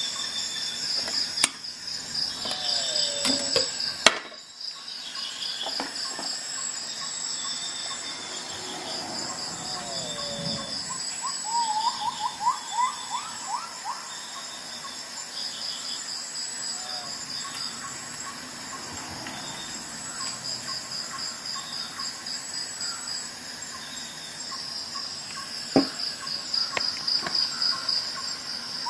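Crickets chirping in a steady, high, pulsing trill, with a bird giving a quick run of rising chirps about twelve seconds in. A few sharp clicks come through near the start and about three seconds from the end.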